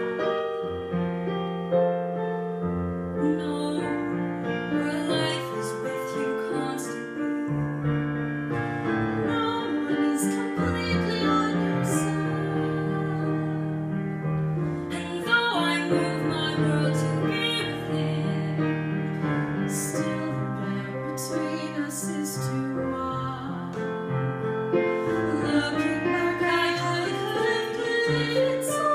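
Two female voices singing a ballad duet over piano accompaniment.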